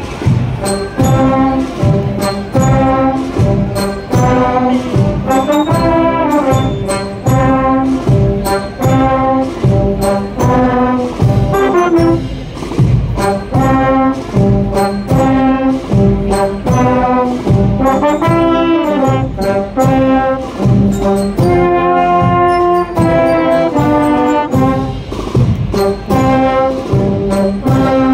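Agrupación musical, a Sevillian Holy Week band of trumpets, cornets, trombones and tubas, playing a procession march. Drums keep a steady beat under the brass.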